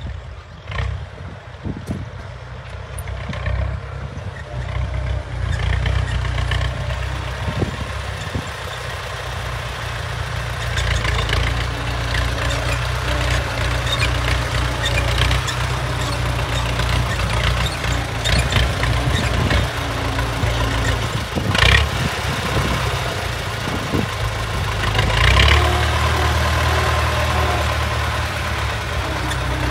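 Diesel farm tractor engine running steadily under load as it pulls a disc harrow through the soil, growing louder as it comes closer, with rattling and clanking from the harrow and a couple of louder knocks in the second half.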